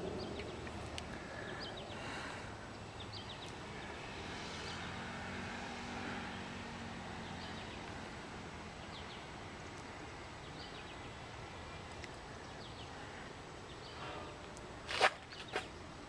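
Outdoor ambience in a park: scattered short high chirps over a steady background hiss, a faint low hum a few seconds in, and two sharp knocks near the end. The tornado siren is silent.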